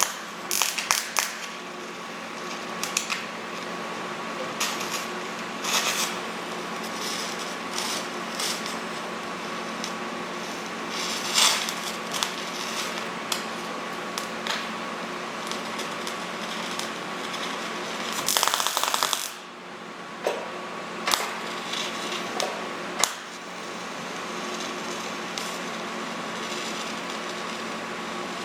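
TIG welder arc on an old mild-steel frame that was brazed before: a steady electrical hum with irregular crackles and pops, and a longer burst of crackling about eighteen seconds in. The arc is not taking well on the old brazing.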